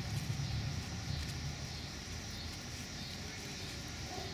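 Steady outdoor background noise: a low rumble with a steady high hiss above it, and no distinct sound from the animals.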